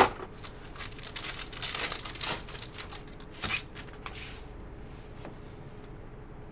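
Trading cards and their packaging being handled: a sharp click at the start, then short bursts of rustling and crinkling over the next few seconds, dying down to faint handling for the last two seconds.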